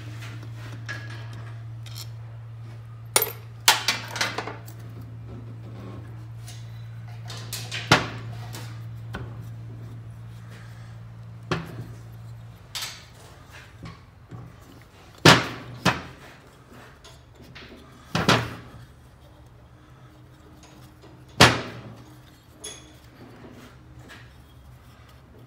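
Metal tools and small valve-gear parts clinking and knocking against a BMW R1200GS aluminium cylinder head and the steel workbench as the head is taken apart, with about a dozen sharp knocks. A steady low hum runs under the first half and stops about halfway.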